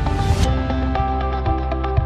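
Background music: electronic track with a deep bass, held notes and a regular beat, opening with a rising swoosh.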